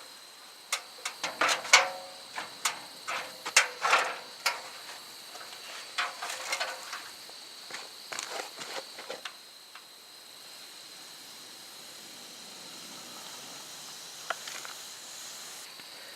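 Irregular short scrapes and light knocks of work on a steel building wall panel while it is being marked out with a marker. They come in quick clusters for about nine seconds, then stop, leaving only a faint steady background.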